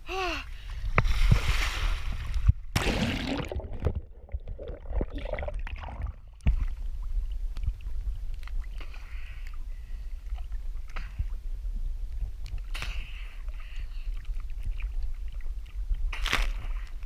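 Water sloshing and splashing around a camera at the water's surface beside a boat, over a steady low rumble. The sound goes muffled for a few seconds about three seconds in, and a short louder splash comes near the end.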